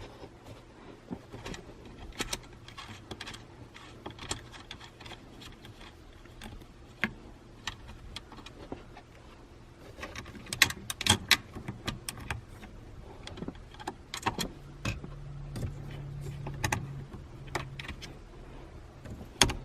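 Scattered small metallic clicks and rattles from small parts and hardware being handled, with a quick run of them about ten to twelve seconds in. A low steady hum sounds for a couple of seconds in the later part.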